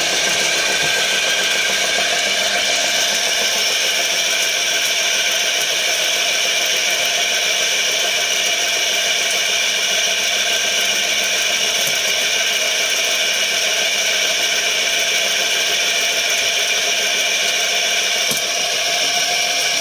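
Briquette extruder running steadily under load, its 5 hp electric motor driving the press as a briquette is pushed out of the nozzle. The noise is loud and constant, a mechanical hum with several held whining tones.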